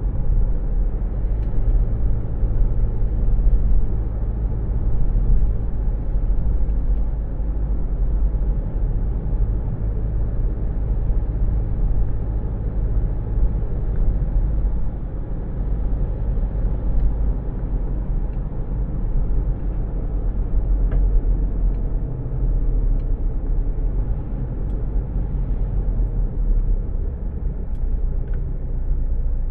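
Steady low rumble of a car heard from inside its cabin, with a low hum that fades out about halfway through.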